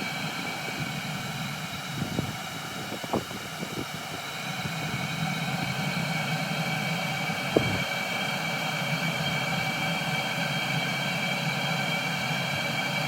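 Chinese 12 V diesel heater running: a steady hum with a high whine from its fan, a few sharp clicks in the first eight seconds, and the sound growing a little louder after about four seconds. It is running while the last air is bled out of its fuel line.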